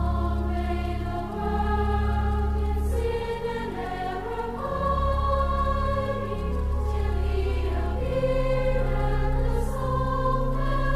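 Background music: a choir singing a slow Christmas piece in long held notes over sustained bass notes.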